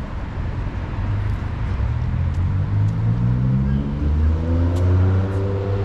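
Street traffic noise, with a nearby vehicle accelerating: its engine note climbs steadily in pitch and grows louder over the last few seconds.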